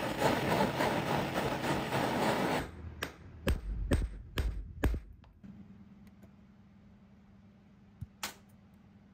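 Sharp metal clicks of hand cutters snipping thin gold strip into short pieces: about five snips in quick succession, then two more near the end. Before them a loud, even rushing noise cuts off abruptly about two and a half seconds in.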